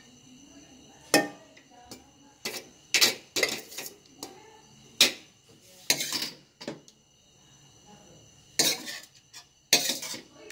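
A metal spoon clinking and scraping against a steel cooking pot in a series of sharp, irregular strokes while rice is spread in layers. A faint steady high tone runs underneath.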